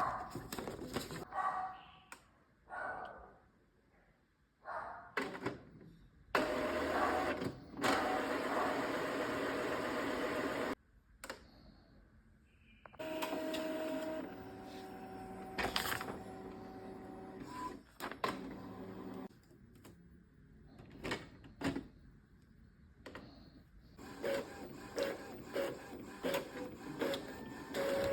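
Epson L3210 inkjet printer working through its mechanism: a stretch of loud rushing noise, then steady motor whine with clicks, then a rhythmic pulsing of about two or three strokes a second near the end as the print carriage and feed motors run.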